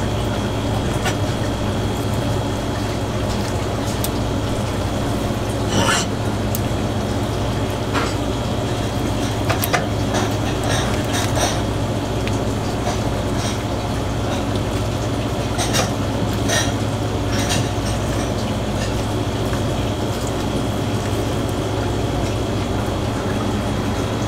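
A knife and gloved hands cutting and pulling apart a pufferfish on a plastic cutting board, heard as a scattering of short clicks and light wet sounds, most of them near the middle. A steady low machine hum runs underneath.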